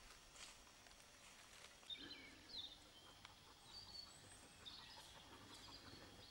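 Near silence: faint outdoor hiss with a few brief, high bird chirps from about two seconds in.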